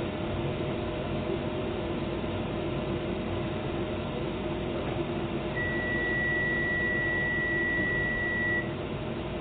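Docklands Light Railway train standing at a platform with a steady electrical hum, then one high, steady beep held for about three seconds from a little past halfway. The beep is the door-closing warning before the train departs.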